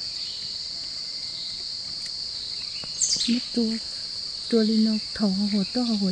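Forest insects keep up a steady, high-pitched drone. From about three seconds in, a woman's voice comes in with short bursts of speech.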